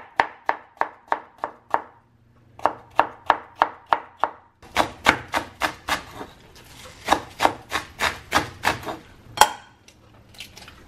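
Broad-bladed kitchen knife chopping vegetables on a wooden cutting board: quick, even strokes about four a second, with a short pause about two seconds in. The chopping stops shortly before the end.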